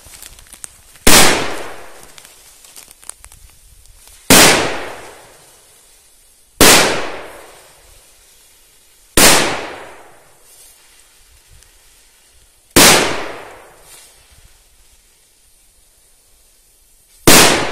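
Salon Roger Trueno Bombs, a string of small flash-powder firecrackers, going off one at a time along the fuse: six loud bangs spaced a few seconds apart, each trailing off afterwards. Each cracker holds under about 1 gram of flash powder and is very powerful for its size.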